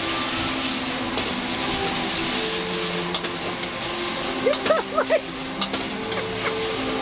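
Water spinach sizzling as it is stir-fried in a wok over a high-flame gas burner, with a metal spatula scraping and knocking against the wok. A quick run of louder spatula scrapes and clanks comes about four and a half seconds in.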